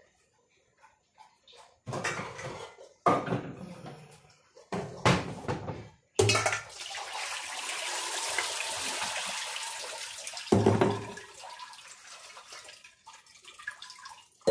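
Kitchenware clattering a few times, then water pouring steadily into a sink for about four seconds as it is drained out of a colander of chopped raw potatoes and carrots. A knock follows, then light rattling.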